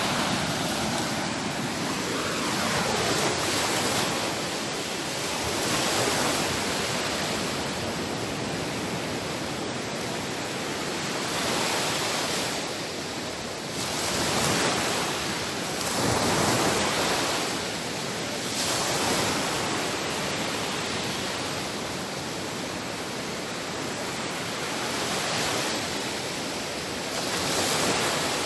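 Sea waves breaking and washing in as a continuous rush of surf, swelling and easing every few seconds.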